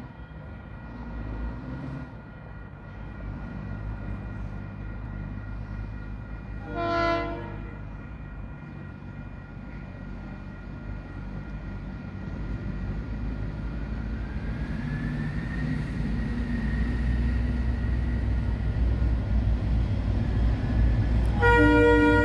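Two diesel-electric locomotives, DC 4726 and DF 7023, approaching with a low engine rumble that grows steadily louder. A horn sounds once briefly about seven seconds in and again near the end.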